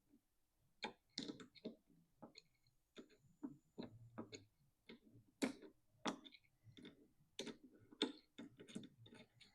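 Irregular clicks and light knocks of an air hose, clamp ring and barbed fitting being handled and pushed together by hand.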